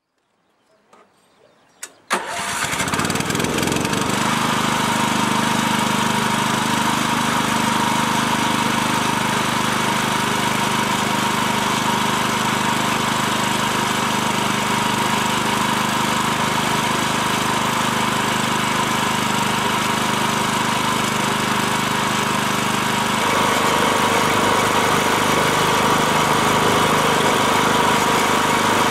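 Yanmar TG162 carrier dump car's small air-cooled OHV engine starting on its electric starter after a few faint clicks, catching almost at once and settling into a steady idle. About twenty-three seconds in its note changes and it runs a little louder.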